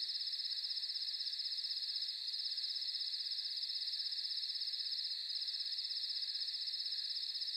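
Night-time chorus of crickets: a steady, high-pitched rapid trill that dips briefly about two seconds in and again about five seconds in.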